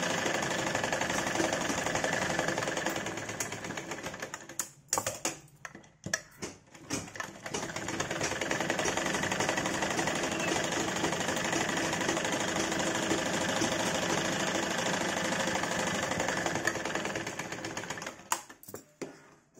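Domestic sewing machine running steadily as it stitches a blouse seam. About four seconds in it slows and stops with a few clicks. It starts again near eight seconds and runs on, then winds down with a few clicks near the end.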